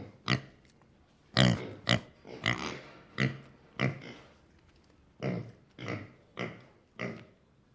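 Pig grunting: a string of about ten short grunts, with a pause of about a second near the middle.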